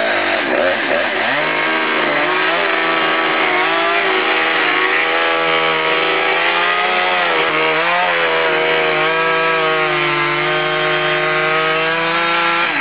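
Two-stroke chainsaw running at high revs while cutting into the wooden side and foam insulation of a hot tub. Its pitch dips briefly a few times as the chain bites.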